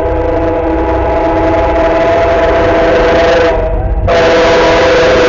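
Locomotive air horn blowing a chord of several notes at once: a long blast, a short break about three and a half seconds in, then a second blast that carries on, over the low rumble of the passing train.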